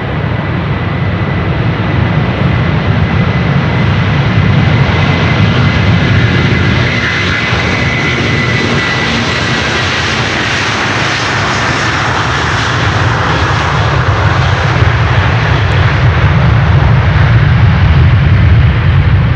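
Airliner's engines running loud as the aircraft passes, a heavy continuous rush with a thin high whine that drops slightly in pitch, swelling again toward the end.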